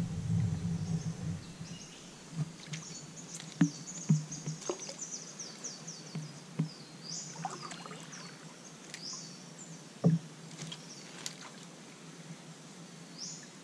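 Knocks and bumps of fishing gear against a plastic kayak, loudest at the start and again about ten seconds in. Behind them, birds give a run of high chirping calls.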